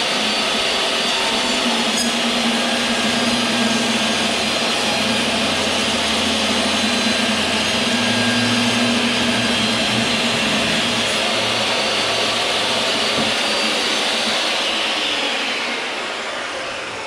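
Table saw running steadily while the ends of a board are trimmed. Near the end it begins to wind down.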